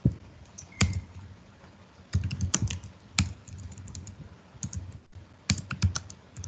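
Computer keyboard typing: irregular clusters of quick keystrokes with short pauses between them.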